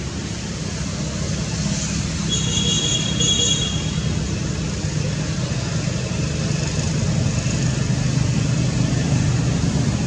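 Steady low rumbling noise, with a brief high-pitched chirping about two to three and a half seconds in.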